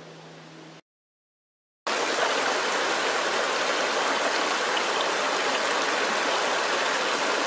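Small rocky creek running over stones: a steady rush of water that cuts in suddenly about two seconds in, after a brief silence.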